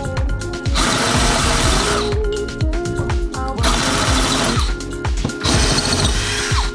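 Power drill with a multi-purpose drill bit boring into a pot, running in three bursts with short pauses between them. Background music with a steady beat plays throughout.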